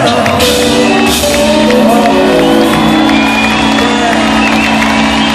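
Live rock band playing a song on electric guitars, drums and keyboards with a lead vocal, loud through the phone's microphone, with shouts and whoops from the audience.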